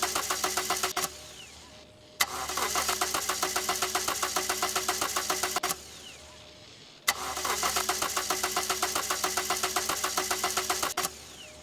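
DeLorean time machine's starter cranking the engine in repeated attempts that don't catch: a rhythmic chug of about nine strokes a second, cut off with a click, then started again. The first attempt ends about a second in, a second runs from about two to six seconds, and a third from about seven to eleven seconds.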